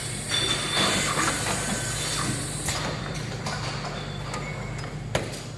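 Semi-automatic neck and body bottle labelling machine running: a steady low motor hum under mechanical whirring and clicking as a glass bottle is turned and labelled, with a sharp click a little past five seconds in.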